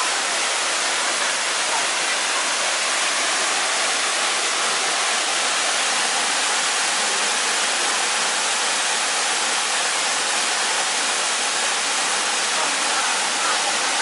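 Waterfall dropping through a hole in a rock overhang into a plunge pool: a steady, even rush of falling water.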